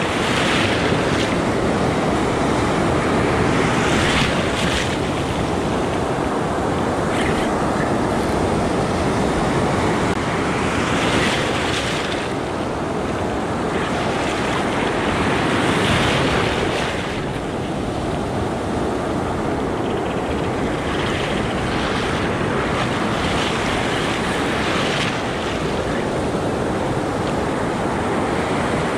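Ocean surf: waves breaking and foamy wash rushing through the shallows, swelling louder every few seconds as each wave comes in.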